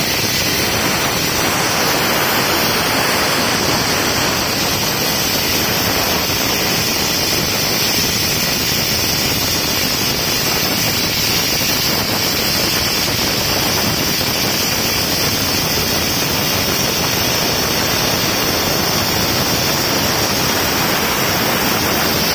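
JKARC Cut 80 inverter plasma cutter slicing through a steel plate: a loud, steady hiss of the arc and compressed-air jet that holds unbroken until it cuts off suddenly at the very end.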